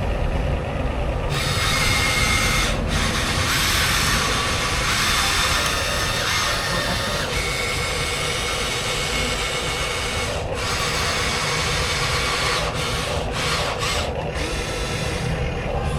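Small electric motors and gearboxes of RC construction toys whirring steadily with a gritty scraping, stopping briefly a few times.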